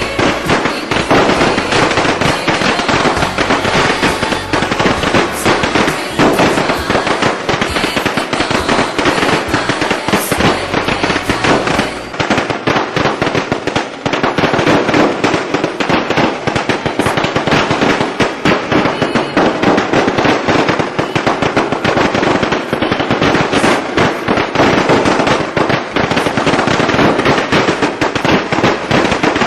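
A long string of firecrackers going off in a dense, unbroken crackle of rapid pops, as set off for Lunar New Year.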